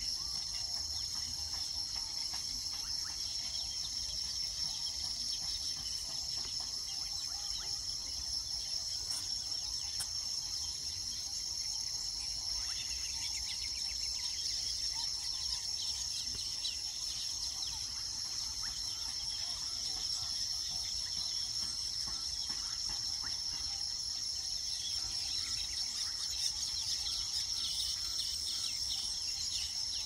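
Steady, high-pitched chorus of insects, with faint bird calls flickering over it in the second half.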